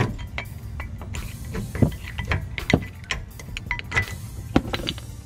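Old rear brake pads being worked out of the caliper bracket on a Dodge Charger: irregular metallic clicks and knocks, some with a short ring, as the pads shift against the bracket and its clips.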